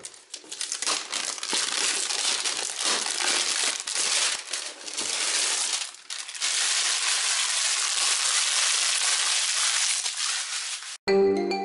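Clear plastic shrink wrap being pulled off a cardboard box and crumpled by hand: a dense crinkling and crackling, steadier in the second half. About eleven seconds in it cuts off suddenly and a few notes of a music jingle begin.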